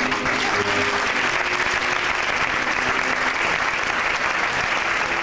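Audience applauding, breaking out suddenly and keeping up steadily, with music playing faintly underneath.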